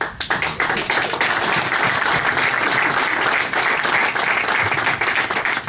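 Audience applauding: many hands clapping in a steady round that starts abruptly and tails off near the end.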